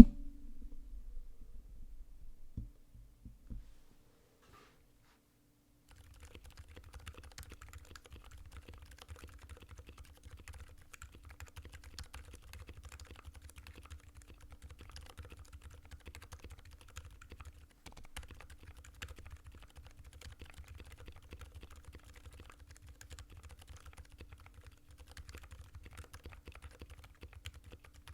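Typing on a Satisfaction75 mechanical keyboard with lubed MX Zilent silent tactile switches on an FR4 plate: a steady, even run of keystrokes that starts about six seconds in, after a few knocks and a short pause.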